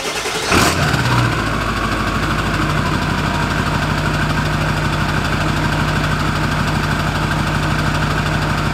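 Ford 7.3 Powerstroke V8 turbo diesel starting: it cranks, catches about half a second in, and then settles into a steady idle. The newly fitted KC300x turbo gives a little spool whine as the engine comes up. Heard at the exhaust tip.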